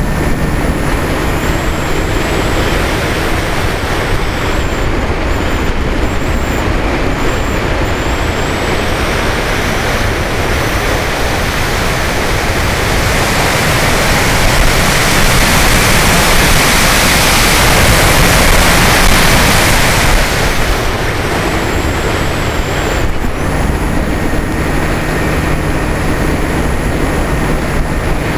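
Airflow rushing over a camera mounted on a Diamond 1800 aircraft in flight. A low steady motor hum drops out after about two seconds and comes back about five seconds before the end. The rush swells and is loudest through the middle.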